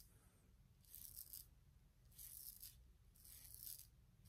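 Focus R28 aluminium shavette blade scraping through lathered stubble on the neck in three faint strokes, each about half a second long: the blade cutting the whiskers.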